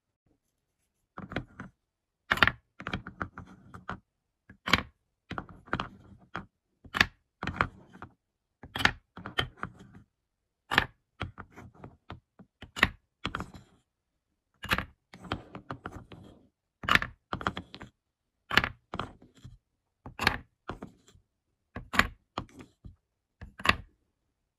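Wooden balls clacking against a wooden scoop, bowl and cups as they are scooped up one by one and dropped into the cups: sharp wooden clicks and knocks in small clusters every second or two.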